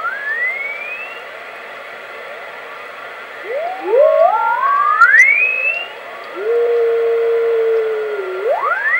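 Whistling beat notes from a 2 m all-mode ham transceiver receiving in upper sideband as its dial is tuned across a steady carrier, over a steady band hiss. The tones glide upward in pitch in steps, a pair of them together at one point. One tone holds steady for about two seconds and then rises again near the end.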